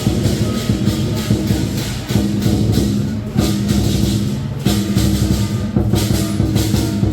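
Chinese lion dance percussion: a large drum beaten in a fast, steady rhythm, with clashing cymbals.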